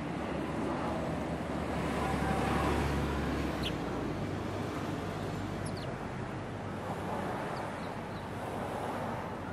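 Urban street ambience: a steady wash of traffic noise, with a low engine rumble that stops about three and a half seconds in. A few short bird chirps sound above it.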